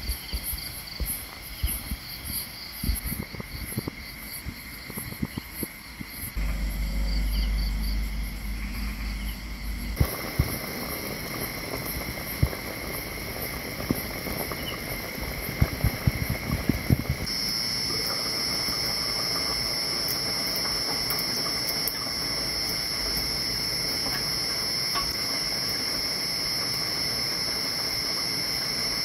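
Insects chirping steadily at a high pitch, pulsing at first, across a run of cut-together shots. A few seconds of low rumble come about a quarter of the way in, followed by a stretch of scattered clicks and crackles.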